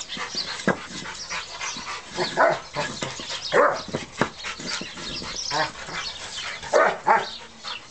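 An adult male Rottweiler gives short barks and whines in separate bursts, about seven times, while pawing and biting at a brick. The brick scrapes against the dirt in between.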